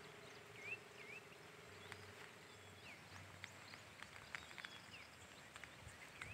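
Faint outdoor ambience with short, repeated bird chirps and scattered small clicks over a light hiss. A faint steady hum stops about three seconds in.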